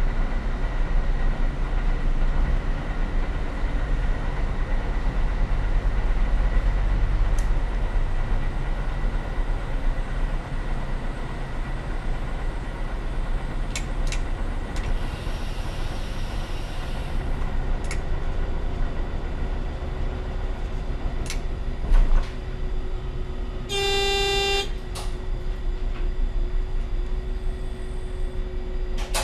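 Y-train diesel railcar running, heard from the driver's cab as a steady low rumble with a few sharp clicks. About 24 seconds in, the train's horn sounds one blast of about a second.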